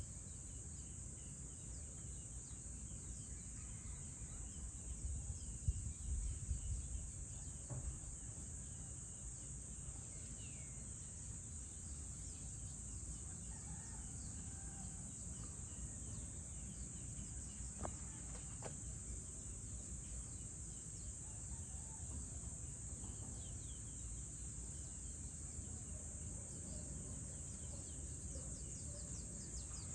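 Evening outdoor ambience: a steady high-pitched insect drone over a low rumble, with faint distant bird calls now and then and a few low bumps about five to seven seconds in.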